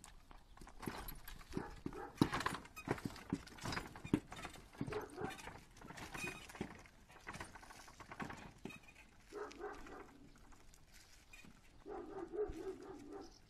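A horse's hooves clip-clopping on a paved road at a walk as it pulls a wooden cart, in an uneven string of knocks. Twice, around the middle and near the end, a short low pitched sound lasting about a second joins in.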